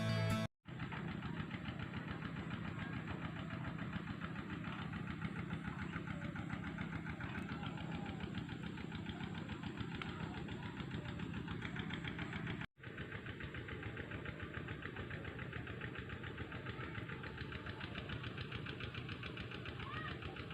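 A small engine running steadily with a fast, even firing pulse. It cuts out twice, briefly: once just after the start and once about two-thirds of the way through.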